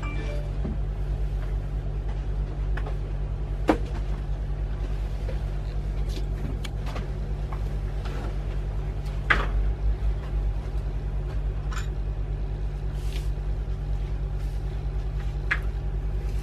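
A steady low hum, with a few soft taps now and then.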